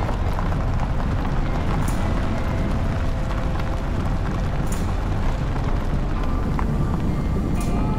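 Steady, loud low rumbling noise that fluctuates constantly, with faint steady tones underneath.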